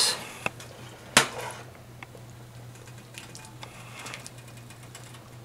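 Metal ladle clinking against a pot and bowl while stew is ladled out: one sharp clink about a second in, then a few faint small clinks over a steady low hum.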